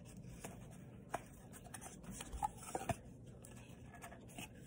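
Cardboard tube handled in the hands: faint rubbing and scraping with a few light taps, the sharpest about a second in and near three seconds.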